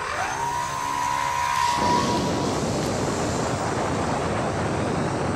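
Small home-built electric RC plane's motor and propeller whining at throttle, the pitch creeping up slightly; about two seconds in, once the plane is thrown, the whine gives way to a steady rushing of air and propeller noise in flight.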